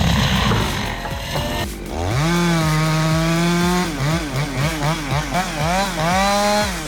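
A small two-stroke engine, a chainsaw, after a noisy rumble in the first second and a half. It revs up, is held at high throttle for a couple of seconds, is blipped rapidly about eight times, and is held high again before letting off at the end.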